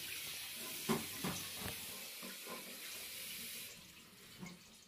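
Cold water running from a kitchen tap over a whole raw chicken in a metal colander in the sink, rinsing off the surface salt of the brine, with a few soft knocks as the bird is handled. The water stops near the end.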